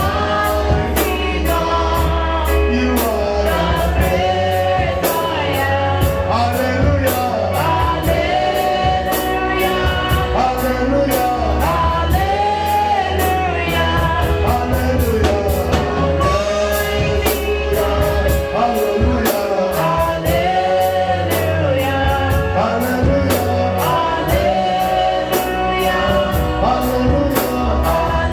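Gospel worship song: voices singing a melody over a band with steady bass and a regular drum beat.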